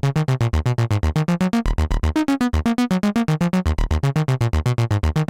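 Sequential Prophet-6 analog synthesizer playing a dry FM patch, oscillator 2 frequency-modulating the voices through Poly Mod, as a fast sequence of short plucked notes over a stepping bass line that repeats every couple of seconds.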